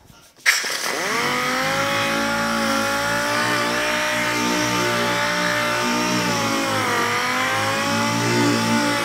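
Air-powered dual-action (DA) sander starting up about half a second in with a burst of air hiss, spinning up within a second, then running steadily as it wet-sands (colour-sands) painted clear coat on a door panel. Its pitch dips briefly about seven seconds in, then recovers.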